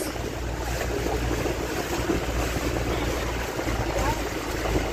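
Motorized outrigger boat (bangka) under way: the engine running steadily at cruising speed, with water rushing past the hull.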